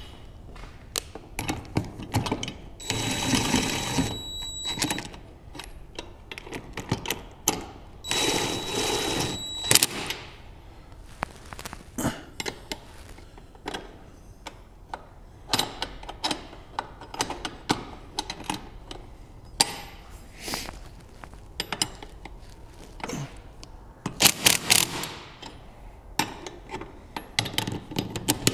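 DeWalt cordless impact driver spinning a socket on a jack-bracket bolt in short runs of about two seconds, with a steady whine, about three and eight seconds in and again near the end. Between the runs come scattered clinks and clicks of a wrench on the metal bracket and bolt.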